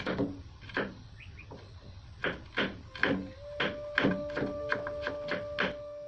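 Kitchen knife slicing garlic cloves on a wooden cutting board: a dozen or so quick, irregular taps of the blade against the board.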